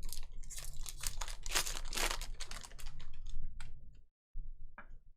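Trading cards and their packaging being handled up close, with crinkling, rustling and quick clicks as cards are slid and flipped. The busiest stretch is in the first three seconds, and the sound thins to a few scattered clicks near the end.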